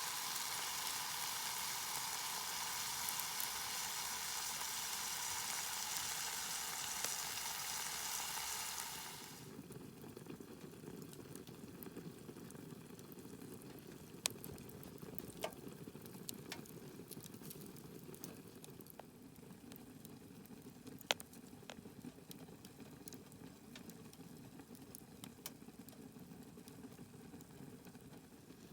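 Sukiyaki sizzling hard in a pan for about nine seconds. It then gives way abruptly to a quieter, lower bubbling simmer with occasional sharp ticks.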